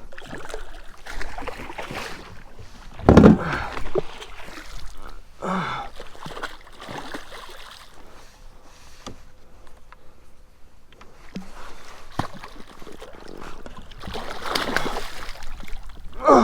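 Water splashing and sloshing as a hooked striped bass is brought in, with a louder splash about three seconds in.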